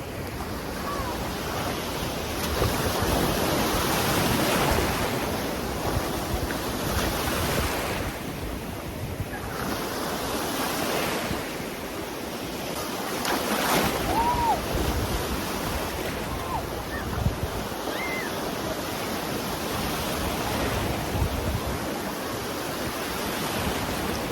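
Sea waves washing and breaking around a phone's microphone set on a tripod in the shallows, with wind buffeting the microphone. The surf swells and eases every few seconds.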